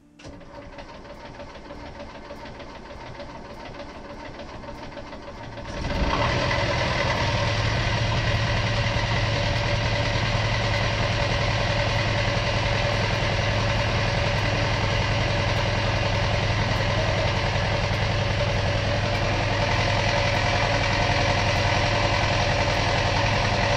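A boat's inboard engine is turned over by its starter for about six seconds, then catches and runs steadily at a fast idle. Its raw-water pump is drawing antifreeze in from the strainer and through the exhaust.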